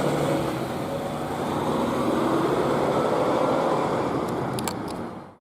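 Steady background rush of road traffic, with no siren tone or voice. A few sharp clicks come near the end, then the sound cuts off.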